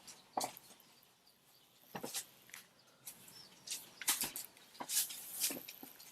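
Handling noise: scattered short clicks and rustles of hands on a camera and tablet, a few at first and clustering from about four seconds in.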